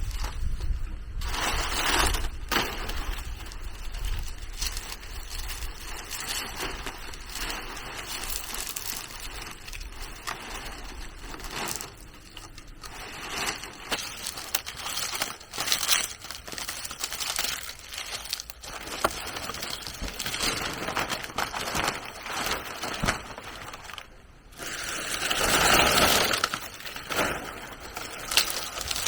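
Irregular rustling and crinkling with scattered sharp cracks, like dry material being handled and broken, growing louder for a couple of seconds near the end.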